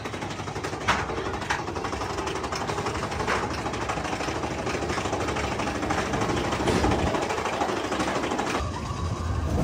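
Big Thunder Mountain Railroad mine-train coaster rattling along its track with a fast, steady clatter, with a few sharper clicks in the first few seconds.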